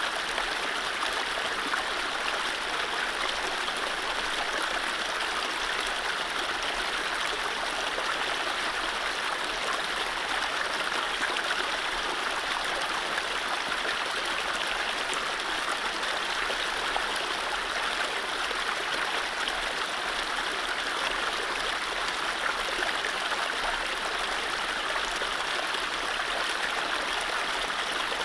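Mountain stream running over low rapids: a steady rush of water, with no birdsong.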